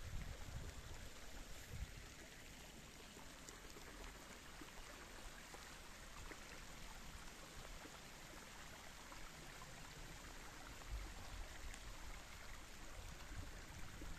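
Small shallow forest stream flowing over its leafy bed: a faint, steady wash of running water. A few low thumps on the microphone near the start and again near the end.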